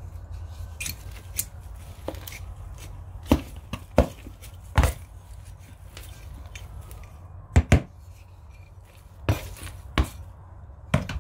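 A hand tool digging and knocking through potting compost as fertilizer is mixed in. About a dozen short, sharp knocks, with a cluster of loud ones a few seconds in and a quick double knock past the middle.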